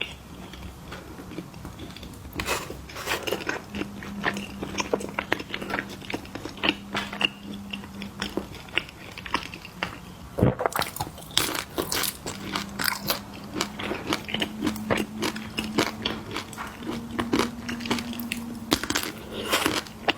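Close-up crunching and chewing of crisp snacks: a quick, irregular run of crunches with short pauses, one sharp crack about halfway through. A faint steady low hum sits underneath for stretches.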